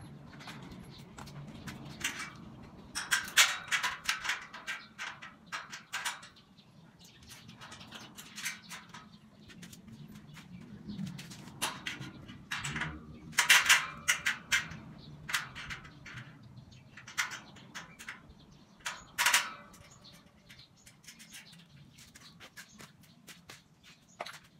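Irregular metallic clanks and knocks of square steel tubing and fittings being handled and fitted together, in three louder clusters: a few seconds in, about halfway, and again a few seconds later.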